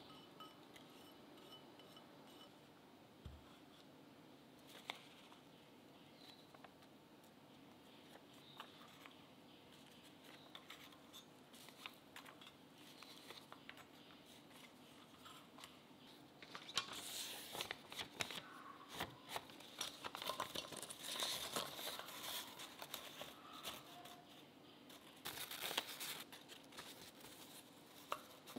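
Faint scattered taps and clicks, then from about halfway a stretch of baking parchment crinkling and rustling as paper strips are curled and pressed into the cups of a metal muffin tin.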